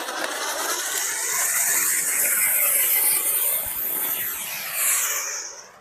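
Flower pot (anar) fountain firework burning, spraying sparks with a steady hiss that dies away near the end.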